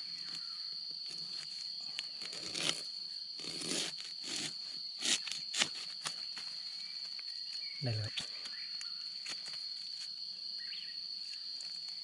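Insects droning steadily at one high pitch, over scattered crunches and snaps of dry leaves and stems in the undergrowth, clustered in the first half. A brief low vocal sound comes about eight seconds in.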